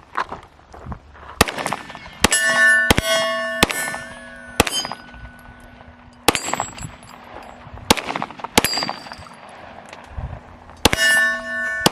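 FN 509 9mm pistol firing a string of about nine shots at an uneven pace, and steel targets ringing with a sustained clang after several of the hits.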